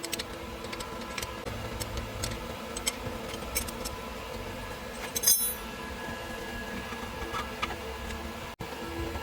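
Scattered light metallic clicks and clinks of parts or tools being handled, with one louder clink about five seconds in, over a steady low hum.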